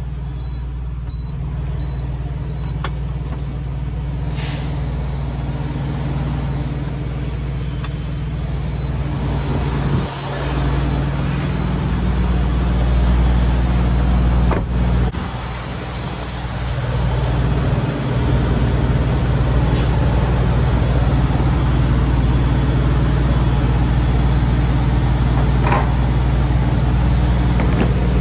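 Semi-truck diesel engine running steadily at idle, growing louder partway through as the cab is left, with a few short hisses and a thump near the middle.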